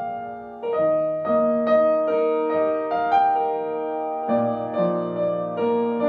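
Soft, slow piano music: gentle sustained chords with a new note or chord about every half second to a second.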